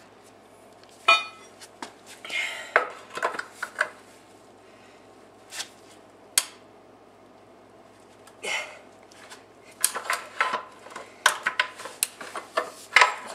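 Steel pry bar clinking and scraping against the bolts and housing of a Ford 4R100 transmission's front pump as the pump is pried loose: a few scattered sharp clinks, then a quick run of clinks in the last few seconds.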